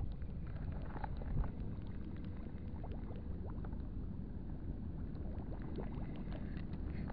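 Water lapping close by under a steady low rumble, with scattered small irregular ticks and splashes.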